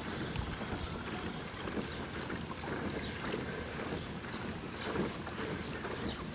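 Steady water and wind noise of a boat moving along the lakeshore, with wind rumbling on the microphone.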